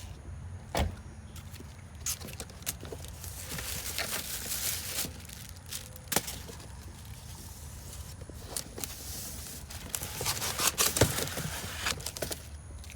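Handling noises: scattered clicks and knocks with stretches of rustling, over a steady low rumble. The sharpest knocks come about a second in, around six seconds and around eleven seconds.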